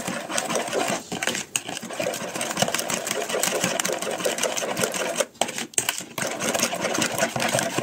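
Metal spoon stirring a kefir mixture in a bowl, clinking and scraping rapidly against the sides, with brief pauses about a second in and just past the middle.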